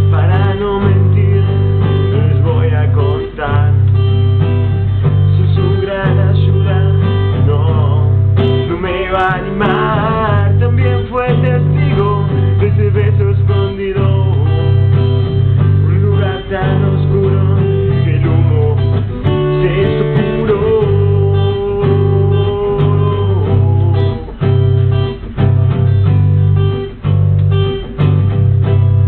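Steel-string acoustic guitar strummed in chords, accompanying a male voice that sings along at times.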